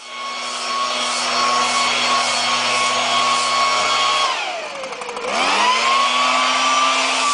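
Handheld leaf blower running steadily at high speed; about four seconds in its pitch drops away, then climbs back up to the same steady pitch.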